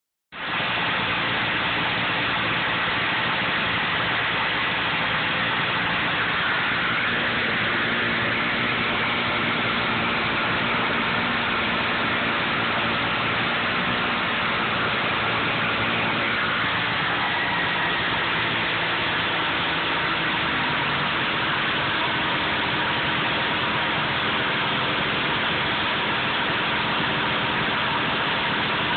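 Suzuki GT380's air-cooled two-stroke three-cylinder engine running steadily at idle, with no revving.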